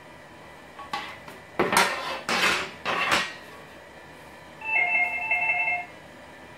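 Plastic reflector panels of a Ubiquiti LiteBeam AC Gen2 dish antenna being handled: a few knocks and scraping rustles as the perforated panels are lifted and brought together. About five seconds in there is a short electronic ringing tone lasting about a second.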